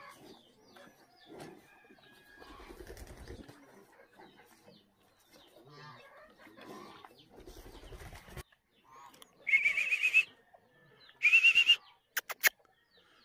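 Farmyard birds: faint scattered sounds, then two loud, wavering high-pitched calls about a second and a half apart near the end, followed by a few sharp clicks.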